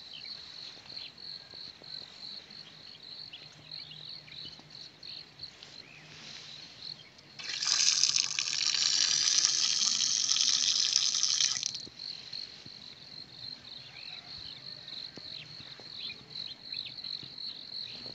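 Outdoor standpipe water tap turned on by hand, water gushing and splashing onto the ground for about four seconds before it cuts off. Under it, crickets trill steadily.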